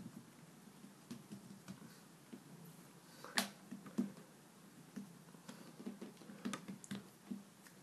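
Fingers and palms tapping and pressing the edges of a flat disc of play dough on a ceramic tile tabletop, rounding it into a circle: faint, scattered soft taps, with a sharper click about three and a half seconds in.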